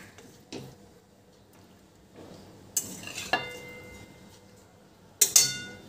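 Metal spatula scraping and knocking in a wok as food is scooped out, with a few sharp clinks that ring on briefly, the loudest about five seconds in.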